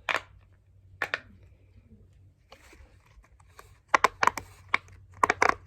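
Silicone unicorn pop-it fidget toy having its bubbles pressed: sharp pops, one at the start and another about a second in, then a quick run of about eight from about four seconds on.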